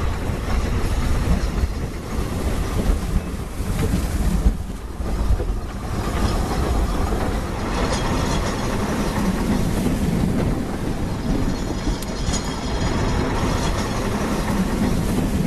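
Cat GH800B longwall coal plow system running: the chain-hauled plow and its face conveyor make a steady heavy mechanical rumble with dense rattling. The level dips briefly about four to five seconds in and then carries on evenly.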